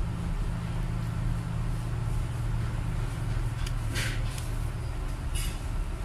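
Steady low hum, with a few brief scrapes and a click from a small precision screwdriver working the screws of a smartphone's inner frame, about four seconds in and again a second and a half later.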